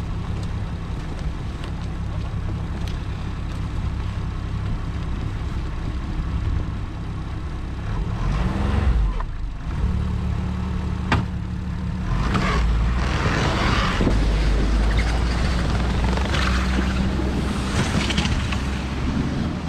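Ski-Doo Skandic snowmobile engine idling steadily, then revving up louder about halfway through as the machine pulls away towing a loaded sled. A single sharp click comes just before it pulls away.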